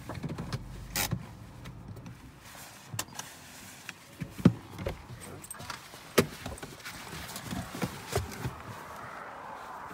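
Inside a car: a low rumble of the car dies away in the first second or so, then scattered sharp clicks and knocks from handling in the cabin, as a gloved hand works the inside of the driver's door.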